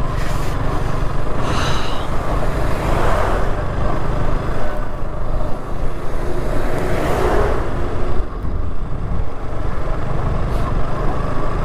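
KTM RC 200 motorcycle on the move: a steady rush of wind and road noise with the engine running underneath.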